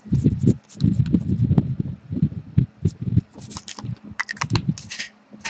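Irregular soft knocks and taps of cards and card packs being handled on a table, with a few brief rustles after the middle.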